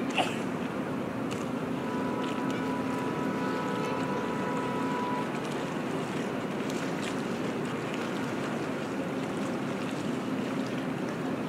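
Steady outdoor background noise with a low, even motor hum. There is one sharp click just after the start, and a thin, steady whistle-like tone from about two to five seconds in.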